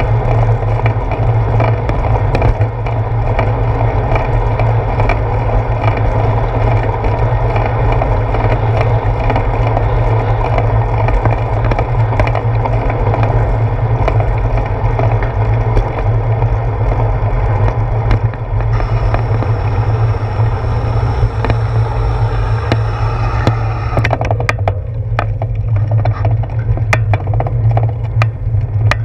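Steady rumble and rattle of a bicycle rolling over wet pavement, carried through a handlebar-mounted action camera, with wind on the microphone. A higher hiss joins for about five seconds past the middle. Near the end the rumble eases and scattered clicks and rattles come through as the bike slows.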